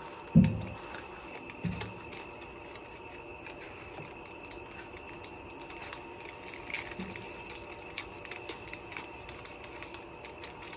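MRE ration packets of cardboard and plastic being handled on a table: a dull thump about half a second in, the loudest sound, and a smaller one near two seconds, then scattered light clicks and crinkles.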